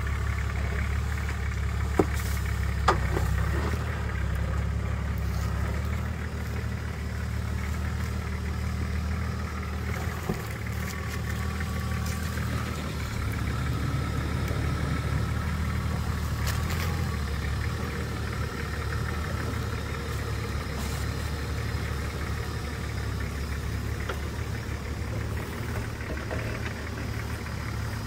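Off-road 4x4 vehicle's engine running steadily at low revs, with a couple of sharp knocks about two and three seconds in.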